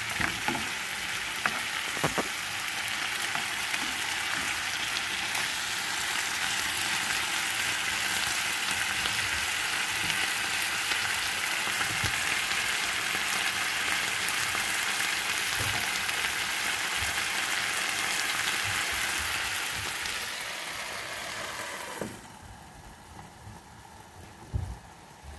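Chicken leg quarters sizzling steadily in oil in a frying pan, topped with ginger, onion and garlic, with a few light knocks near the start. About four-fifths of the way through, the sizzle suddenly becomes much quieter, and a short thump follows near the end.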